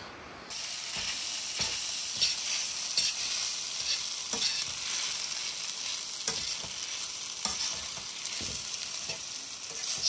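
Food sizzling as it fries in a pan, with scattered clicks of a utensil stirring it. The sizzle starts abruptly about half a second in.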